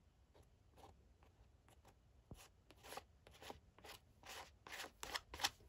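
Small plastic painting spatula dabbing and scraping wet acrylic paint on paper: a run of short, faint scrapes that come quicker and louder in the second half.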